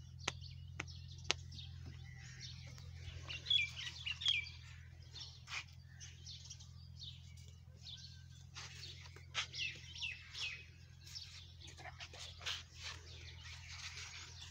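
Small birds chirping and twittering again and again, loudest about four seconds in, over a steady low hum. A few sharp clicks come in the first second and a half.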